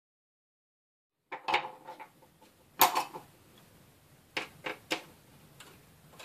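Sharp plastic clicks and knocks of a screwdriver and hands working at the hinge of a laptop's plastic case, starting about a second in, the loudest knock near three seconds in and several more after it.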